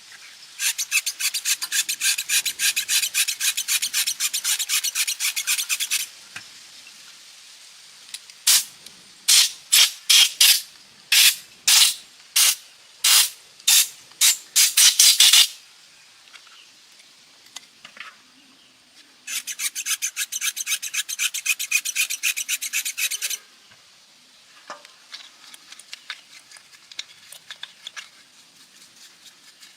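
Hand abrasive work on an engine part, rasping strokes like a file or brush. First a fast run of rubbing strokes, then a dozen or so separate strokes about two a second, then another fast run, ending in faint light ticks.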